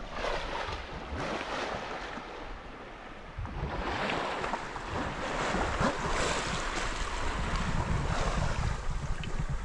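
Wind buffeting the microphone over open sea, with water washing and lapping around a sea kayak; the low rumble of the wind grows louder and gustier about three and a half seconds in.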